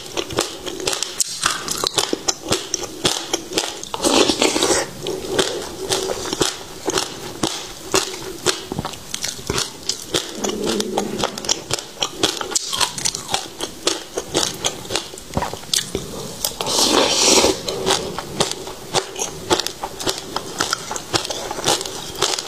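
Close-miked chewing and crunching of passion fruit seeds: a dense, fast crackle of small crunches throughout, with louder bursts about four seconds in and again near seventeen seconds.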